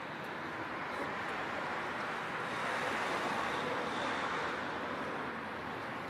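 Street traffic noise: a steady rush that swells for a few seconds in the middle as a vehicle goes by, then eases.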